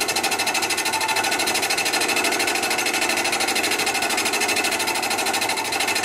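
A small manual milling machine running with a boring head, its Palbit boring bar taking a half-millimetre cut in a motorcycle handlebar clamp. It makes a rapid, even mechanical pulse with steady tones over it.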